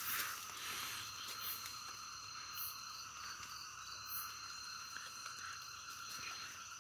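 Steady chorus of night insects such as crickets, several high, even pitches layered together, with a few faint rustles.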